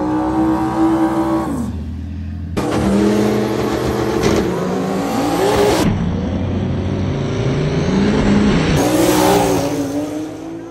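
High-performance drag cars, a Nissan GT-R and a Ford Mustang, revving their engines hard at the start line, the pitch rising and falling in repeated revs, broken by a few abrupt cuts. Near the end they launch at full throttle, the pitch climbing as they pull away and fade.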